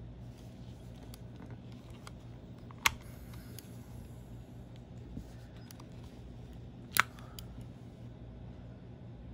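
Two sharp plastic clicks, about three and seven seconds in, with a few faint ticks between, from handling a wireless mouse's AA battery and its snap-on plastic battery cover.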